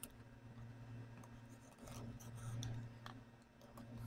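Faint scraping and light ticks of a box cutter's blade slitting the plastic shrink wrap on a cardboard phone box, over a low steady hum.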